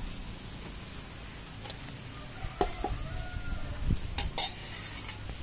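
Chickens clucking, a few short calls around the middle, over a steady low hum, with two sharp clicks a little after four seconds in.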